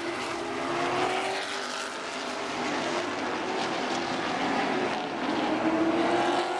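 A pack of super late model stock cars racing on an asphalt oval, their V8 engines blending into one loud, continuous drone. The pitch rises and falls as the cars go through the turns, climbing and peaking in loudness near the end.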